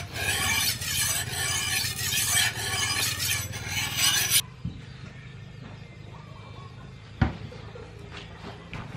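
Machete blade stroked back and forth on a whetstone, a gritty metal-on-stone scraping in repeated strokes that stops abruptly about four seconds in. After that only a low hum remains, with a single knock a little after seven seconds.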